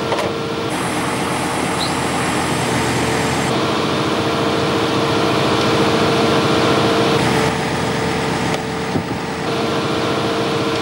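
Steady drone of a running engine with a constant mid-pitched whine, the sound of machinery running beside a parked cargo jet on the ramp. A brief high hiss rides on it about a second in, and the sound dips for a moment near the end.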